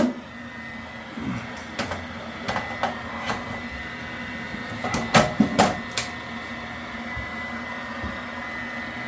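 Tools and metal boiler parts being handled: scattered sharp clicks and knocks, a tight cluster of them about five seconds in, over a steady hum with a faint high whine.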